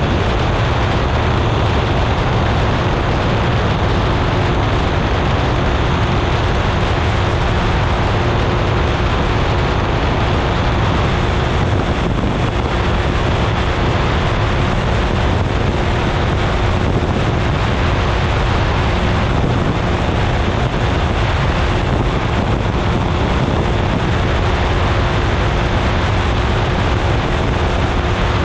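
Weight-shift microlight trike in cruising flight: its engine and pusher propeller drone steadily, with one thin tone held throughout, mixed with wind rushing over the microphone.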